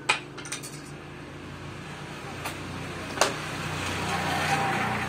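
A few sharp knocks of wood and tools being set down on a wooden saw table, against a motor vehicle's engine rumble that swells over the last few seconds and then begins to ease off.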